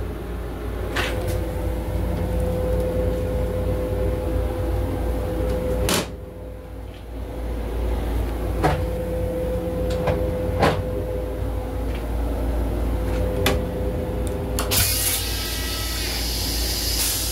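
Steady low rumble and hum of a Long Island Rail Road M7 railcar heard inside its restroom, broken by several sharp knocks and clicks as the toilet lid is raised. Near the end a loud hissing rush starts.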